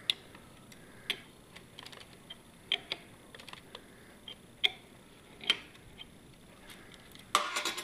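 Scattered light metallic clicks, roughly one a second, from wrenches on the camshafts and the cam chain as a Yamaha Vmax 1200 engine is turned over by hand. A quicker, louder run of clicks comes near the end.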